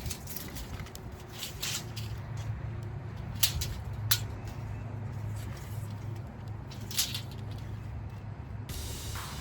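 Electrical wire being handled and measured out: scattered rustles and a few sharp clicks over a steady low hum.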